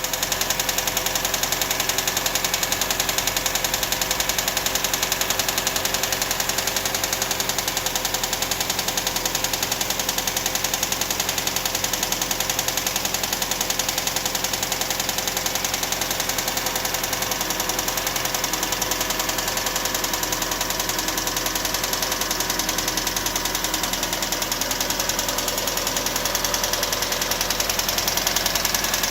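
1999 Toyota RAV4's four-cylinder engine running steadily with a fast, even ticking that keeps pace with the engine.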